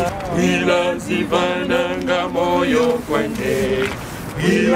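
A mixed group of voices singing a Christian song together in chorus, holding and bending long notes.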